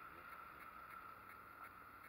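Faint, steady hum of a street motorcycle's engine under way.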